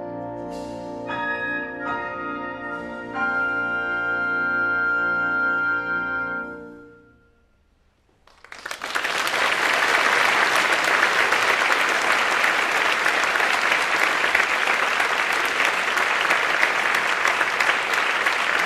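A symphony orchestra and jazz ensemble hold a final sustained chord, with notes entering one after another in the first few seconds, then fading out around seven seconds in. After a moment of silence, the audience breaks into steady, loud applause that continues to the end.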